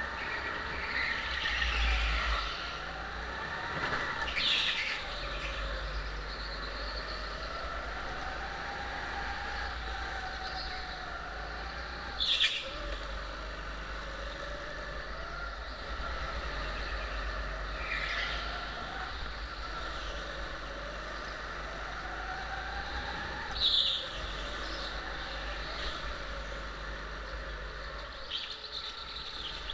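Go-kart's engine running hard, its pitch rising and falling as it speeds up and slows through the corners. Short tyre squeals come every few seconds, two of them loud, about twelve and twenty-four seconds in, the first with a sharp knock.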